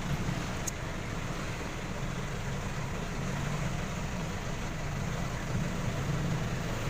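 Steady low rumble of motor-vehicle noise, with no sharp knocks or changes.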